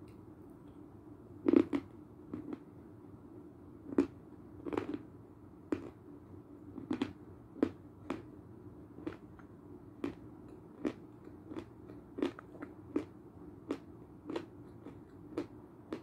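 Biting and chewing a lump of Belgorod edible chalk that has been wetted with liquid, close to the microphone. A loud crunching bite comes about a second and a half in, followed by sharp, crackly chewing crunches roughly every half to one second.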